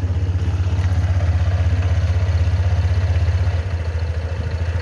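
Honda Vario 160 scooter's single-cylinder engine idling on a cold-morning warm-up, a steady fast pulsing with a rough, clattering 'klotok-klotok' that the owner hears from the CVT and suspects may not be normal.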